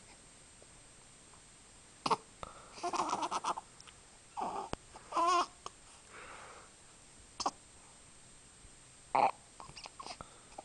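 Young baby cooing and babbling: a string of short squeaks and grunts with quiet between, including one wavering pitched coo about halfway through.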